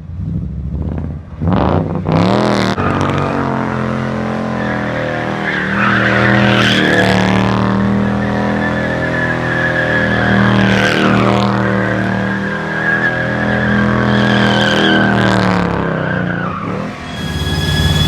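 ZMZ V8 engine in a Volga, breathing through custom exhaust headers, revved up about a second in and held at high revs for about fourteen seconds, then let down near the end. A high, steady squeal sits over the engine while it is held.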